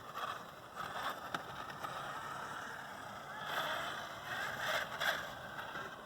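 1/8-scale Exceed Mad Drift RC car driving on wet pavement: a rushing sound of motor and wet tyres that swells twice, about three and a half and five seconds in, with a few light clicks.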